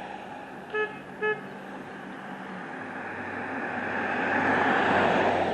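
Two short car-horn toots about a second in, over steady street traffic; a vehicle passes close, getting louder toward the end and then fading.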